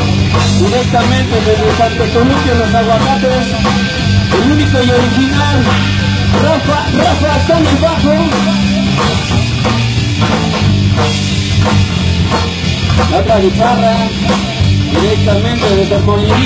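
A rock band playing live: a man singing over electric guitars, bass guitar and a drum kit, with a steady beat.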